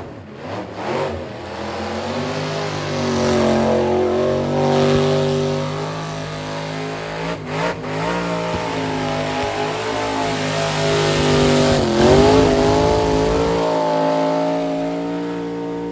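Burnout car's engine held at high revs with its tyres spinning in a burnout, the pitch wavering, then dipping sharply about halfway through and again about three-quarters of the way through before climbing back.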